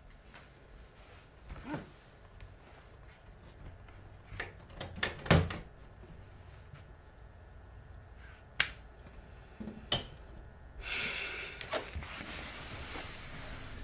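A few scattered knocks and thuds, the loudest about five seconds in, then a brief rushing scrape near the end as a door is unlocked and opened.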